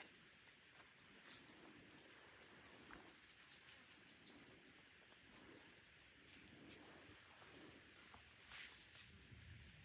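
Near silence: faint outdoor forest ambience with a few soft ticks.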